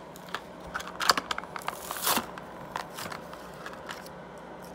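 Stiff clear plastic blister packaging and card from a 1:64 diecast car box crinkling and crackling as they are pulled apart and handled, with sharp crackles about one and two seconds in, then fewer, quieter clicks.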